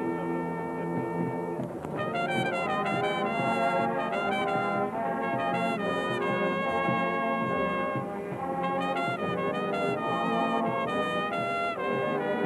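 Marching band brass playing: held chords, then from about two seconds in a run of quick, high, moving notes over them.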